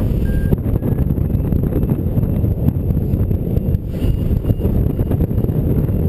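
Airflow rushing over the microphone of a paraglider in flight, heavy and steady. A variometer beeps about twice a second near the start and again from about two-thirds of the way through, higher-pitched the second time: the sign that the glider is climbing in a thermal.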